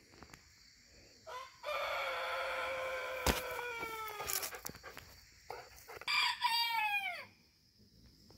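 Rooster crowing twice: a long crow of about three seconds that drops in pitch at its end, then a shorter crow that sweeps downward. A sharp click cuts through the middle of the first crow.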